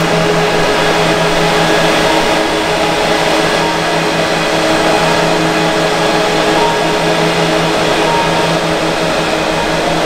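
HP large-format printer running while it prints, giving a steady mechanical hum of fans and drive with a few held tones.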